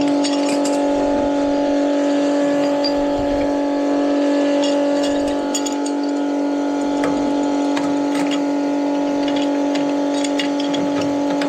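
A steady motor hum at one constant pitch, with scattered light metallic clicks and knocks.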